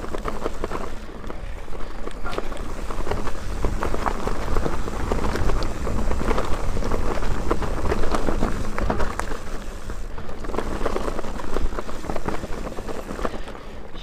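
Mountain bike ridden fast down a rough dirt singletrack: a continuous dense clatter of the bike rattling over the bumpy trail and tyres on dirt, with low wind rumble on the handlebar-mounted microphone.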